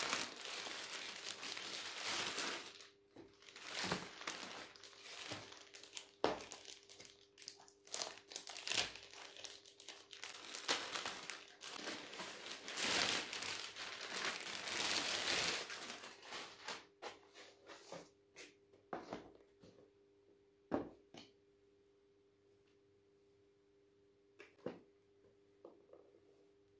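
Thin plastic shopping bag crinkling and rustling as it is handled and opened, a package pulled out of it. The crinkling is loud for about the first sixteen seconds, then gives way to a few scattered rustles and taps over a faint steady hum.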